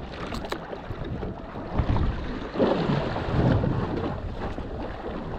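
Wind buffeting the microphone and sea water washing against a small boat, with a couple of sharp clicks about half a second in.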